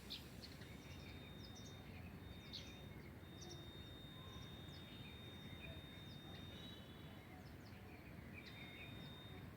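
Faint background of short, high bird chirps over a low hiss, with a thin steady high tone that holds for several seconds, breaks off, and returns briefly near the end.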